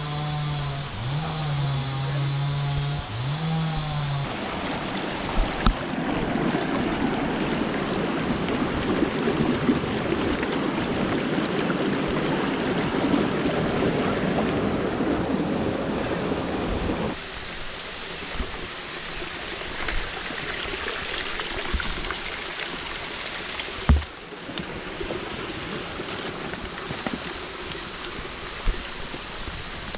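Rushing water of a rocky mountain river, a dense steady noise that fills most of the first half and stops abruptly at a cut about 17 s in, after which a quieter steady background carries a few sharp knocks. A held low tone that dips twice is heard in the first four seconds.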